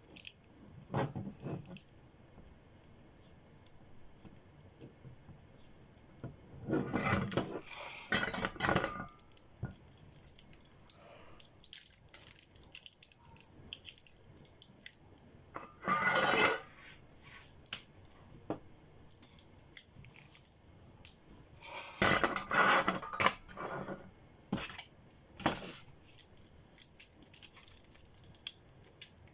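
Small hard objects being handled on a work surface: scattered clicks with several short bursts of clatter, the longest a few seconds in.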